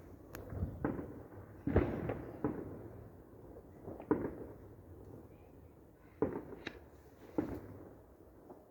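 Fireworks going off: about ten sharp bangs at irregular intervals, each trailing off in a short rumble, with the loudest just under two seconds in.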